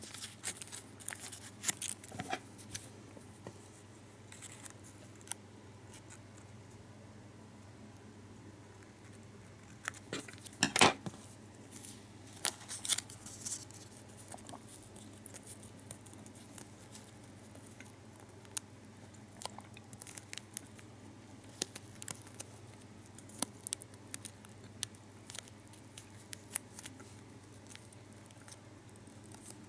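Foil-backed gum wrapper crinkling and crackling between the fingers as it is creased and folded, in irregular small crackles, with a louder crackle about eleven seconds in.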